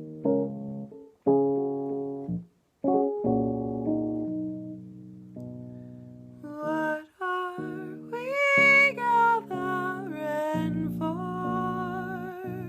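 Song intro: keyboard piano chords struck and left to ring. From about halfway, a woman's wordless singing, humming-like and wavering in pitch, comes in over the piano.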